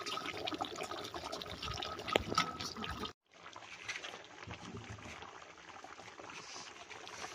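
Water trickling and splashing, with scattered small clicks. It cuts off abruptly about three seconds in and resumes quieter and steadier.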